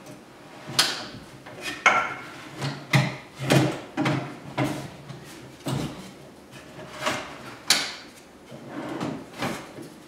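Wooden drawers running on metal drawer slides, pulled open and pushed shut one after another: about a dozen short rolling rattles and sharp knocks as the drawers reach their stops.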